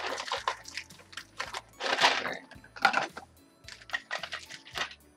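Clear plastic packaging crinkling and crackling in irregular bursts as it is handled and pulled open, loudest about two and three seconds in.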